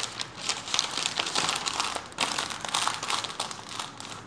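Florist's wrapping sheets crinkling and rustling irregularly as they are folded and gathered by hand around a bouquet.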